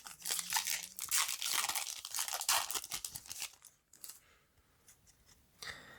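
Foil Yu-Gi-Oh booster pack wrapper being torn open and crinkled, a dense crackling for about four seconds that then dies down to faint handling.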